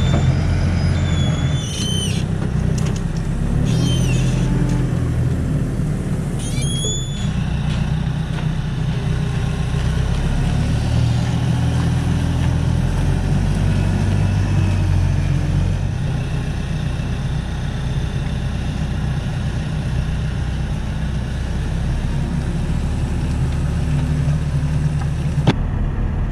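Forklift engine running and revving as it unloads crates from a flatbed trailer, its pitch rising and falling, with brief high squeaks about two seconds in and again about seven seconds in.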